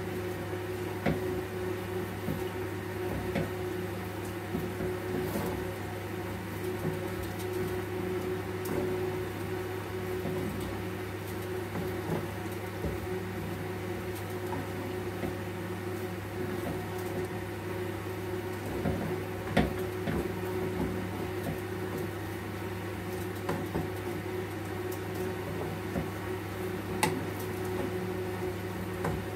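A steady hum, like a kitchen extractor fan or appliance motor, with scattered knocks and scrapes of a spoon in a pot as maize flour is stirred into hot water for ugali. The loudest knock comes about two-thirds of the way through.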